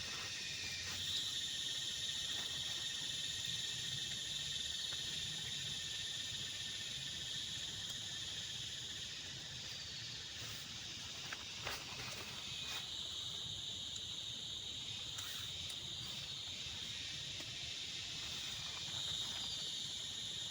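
Insects chirring steadily in a continuous high-pitched drone that fades for a few seconds in the middle, then returns. There are a few soft clicks or knocks, one just under twelve seconds in.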